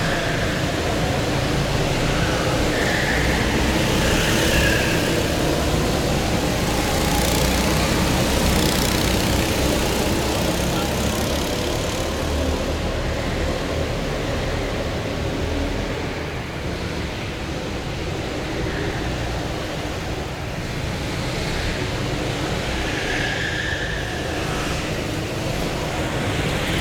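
Go-kart engines running on an indoor track in a large hall: a steady din of small engines whose pitch rises and falls as karts pass by.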